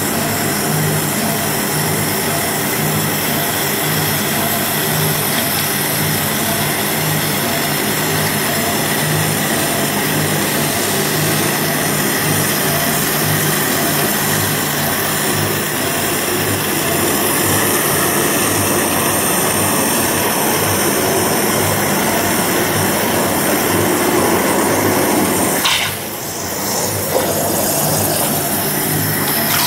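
Semyx Optima 420 5-axis waterjet cutting metal plate: the high-pressure water jet hisses loudly and steadily, with a low, regular pulsing underneath. Near the end the sound dips abruptly and water splashes up around the cutting head.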